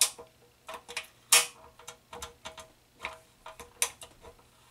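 Piezo self-igniter of a single-burner propane stove being worked by turning its control knob: an uneven series of sharp clicks and snaps, loudest about a second and a half in.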